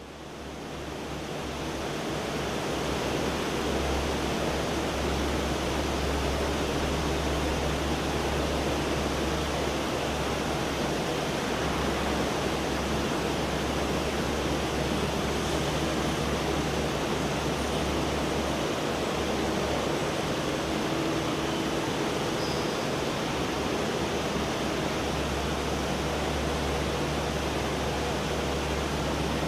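Biesse Stream edge-banding machine running: a steady rushing noise with a low hum beneath it, fading in over the first few seconds.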